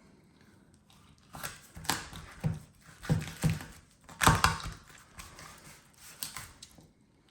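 Chef's knife cutting a raw chicken breast in half, with about nine irregular knocks and crunches as the blade goes through and strikes the cutting board.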